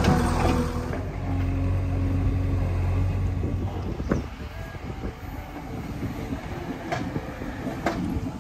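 JCB 3DX backhoe loader's diesel engine running steadily. About four seconds in it drops to a quieter, rougher rumble, with a few light knocks near the end.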